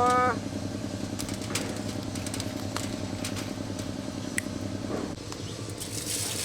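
A steady low engine-like hum with a few light clicks; a short pitched sound ends just at the start, and a crackling noise begins near the end.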